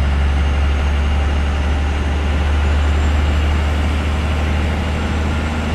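12-valve Cummins inline-six diesel pulling under load in fifth gear, heard from inside the cab: a steady low drone with road noise. It is accelerating sluggishly, which the owner puts down to excessive play in the throttle pedal and cable keeping the engine from reaching full throttle.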